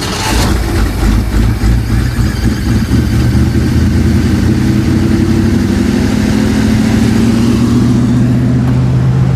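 Ford F100 pickup's Holley-carbureted engine, just fired up, running unevenly at first and then settling into a steady high idle that still needs turning down.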